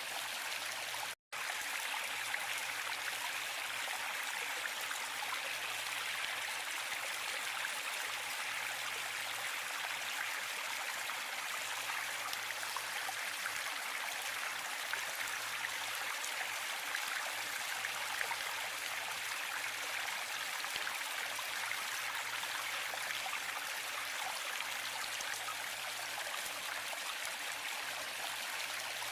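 Waterfall rushing steadily, an even hiss of falling water that cuts out completely for an instant a little over a second in.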